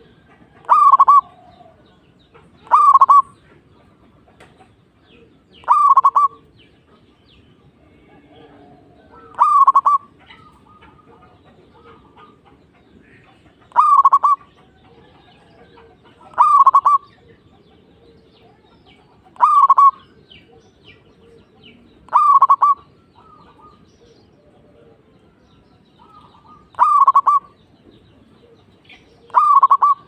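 Zebra dove (perkutut) cooing: about ten short, stuttering calls, each about half a second long, repeated every two to four seconds.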